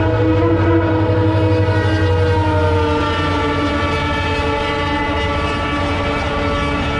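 Indian Railways train horn blowing one long, continuous multi-tone blast, its pitch sinking slightly a couple of seconds in, over the low rumble of the passing train.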